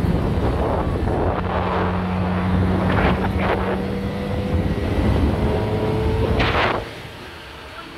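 4x4 vehicles driving on beach sand: steady engine rumble and wind noise, with a few short louder gusts. The noise drops off suddenly near the end.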